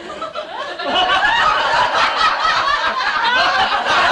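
An audience laughing together, the laughter swelling loudly about a second in.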